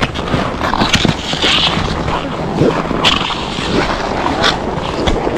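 Scraping and crunching on packed snow as the wearer moves across the slope, with irregular sharp knocks and clatter now and then.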